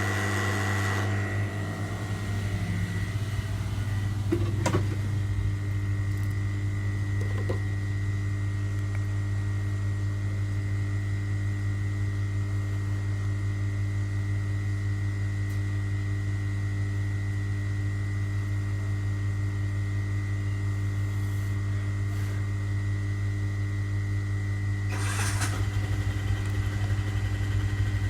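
A small motor running steadily, with a low hum and a constant high whine. A short burst of hiss comes near the end.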